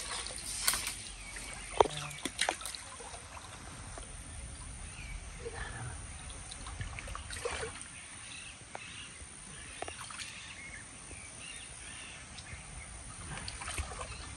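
Shallow stream water lightly sloshing and splashing as hands grope under the water and among tree roots, with a few sharper splashes in the first three seconds. Faint bird calls sound in the background.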